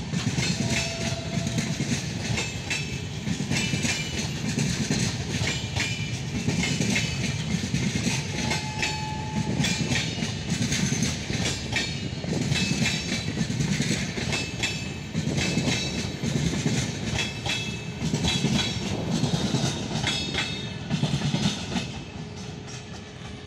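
Passenger coaches of the 15104 Gorakhpur Intercity Express passing at speed close by, their wheels clattering over rail joints in a steady, repeating rhythm. The clatter falls away near the end as the last coach goes by.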